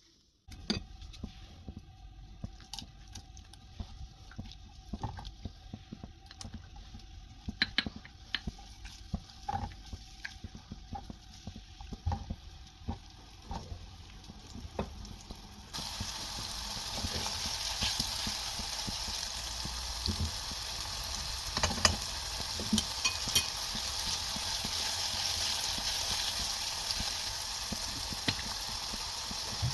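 Scattered clicks and knocks of a utensil against cookware. About halfway through, a steady sizzle of food frying in hot oil starts suddenly and carries on, with a few sharp clicks of stirring over it.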